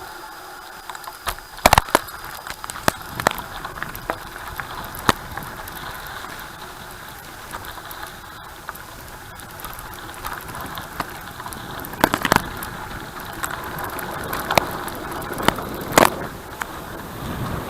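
Bicycle being ridden over a rough surface: steady rolling noise with frequent irregular rattles and sharp knocks from the bike, a few of them louder.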